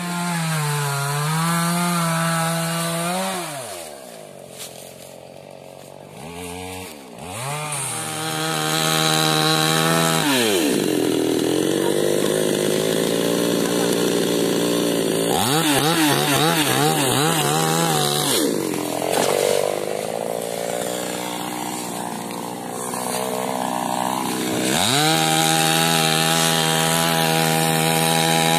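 Eucalyptus debarking machine's motor running at a steady high pitch, then dragging down in pitch each time a pole is pressed onto the cutter, with rough scraping of bark. It spins back up between poles; the cycle comes about three times.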